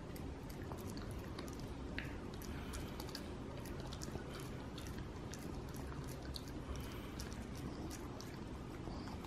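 A West Highland White Terrier chewing a vegan pig's-ear chew, its teeth making irregular wet clicks and crunches against a steady low background noise.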